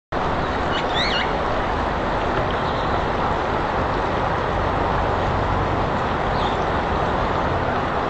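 Steady rushing background noise, with a few short, high, quickly gliding bird chirps about a second in and a fainter one near six and a half seconds.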